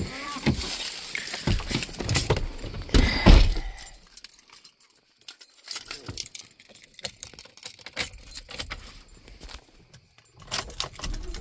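Keys jangling and rattling, with knocks and rustling as they are handled inside a truck cab. The rattling is loudest in the first few seconds, then thins to scattered light clicks and taps.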